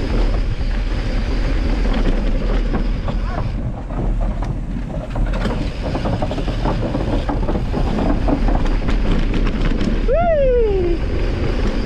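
Mountain bike riding down a rough dirt trail: wind buffeting the microphone over a steady rumble, with scattered clicks and rattles from the bike over bumps. About ten seconds in, a brief pitched tone slides downward.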